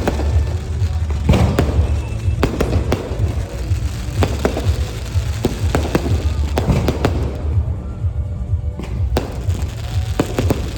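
Aerial fireworks bursting, sharp bangs and cracks coming about one or two a second over a steady low rumble, with music playing.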